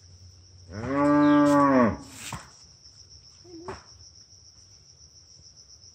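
A cow moos once, a single low call lasting just over a second that rises and falls in pitch, over the steady high drone of insects.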